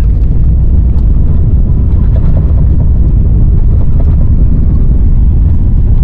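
Loud, steady low rumble of an Airbus A350-900's Rolls-Royce Trent XWB engines and airflow, heard from inside the economy cabin, with a few faint clicks.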